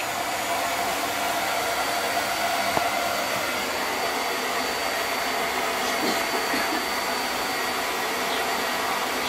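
A steady whooshing hum from a running motor and fan, with a faint high whine held level.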